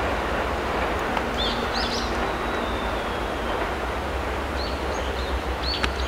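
Electric train running steadily, a low rumble with an even hiss, while birds chirp a few times over it.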